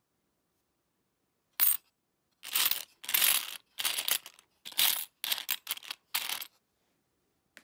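Old Philippine coins clinking and jingling as a finger stirs through a pile of them in a wooden box. A single sharp clink comes about a second and a half in, then a run of jingles for about four seconds.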